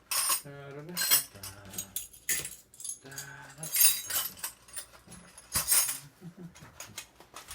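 Metal wrenches clinking against each other as they are put back into a wrench bag, in several separate bursts of jangling.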